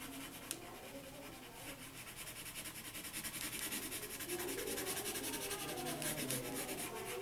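Colored pencil rubbing back and forth on paper in quick, even strokes, pressed hard to lay down dark, bold color at a letter's edge; the scratching grows louder about halfway through.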